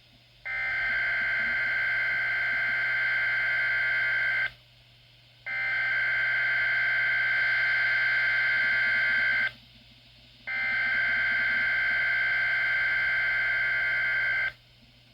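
Three SAME (Specific Area Message Encoding) emergency-alert header bursts from a Weatheradio Canada broadcast. Each is about four seconds of a harsh, buzzing digital data tone, with a second's pause between them. This is the coded header that sets off alert-equipped weather radios, here sent as a routine test.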